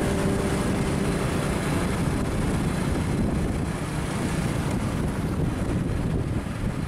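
Wind buffeting the microphone over the steady rumble of a moving vehicle on the road.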